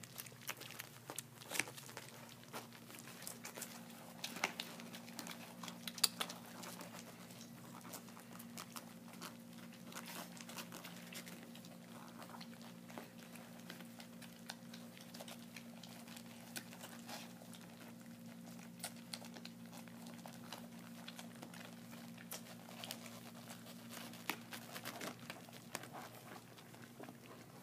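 German shepherd puppies eating their first solid food from a shared dish: faint, scattered smacking and clicking of small mouths and the scuffle of paws on a blanket, with a few louder clicks about four to six seconds in.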